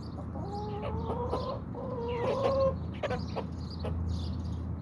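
Domestic chickens clucking, with a drawn-out wavering call through the first half, over many short sharp clicks.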